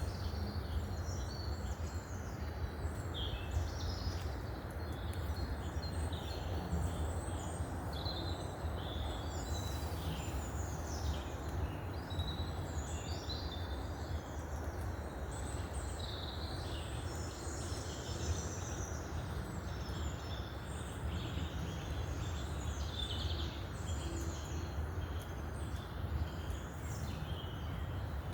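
Several songbirds singing and calling over one another in a continuous mix of short chirps and trills, over a steady low rumble.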